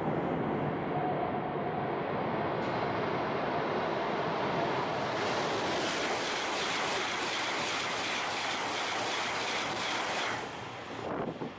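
Shinkansen bullet train passing at high speed: a loud, steady rush of air and wheel noise that turns brighter and hissier about five seconds in as the cars sweep by, then eases off near the end.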